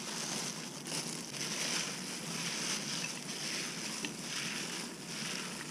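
Gloved hands tossing and mixing crawdad laab in a bowl: a soft, uneven rustling of plastic gloves and moist herbs and crawfish meat.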